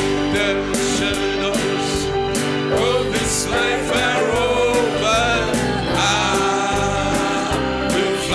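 Country-style gospel music with a steady beat: guitar accompaniment under a sung melody line.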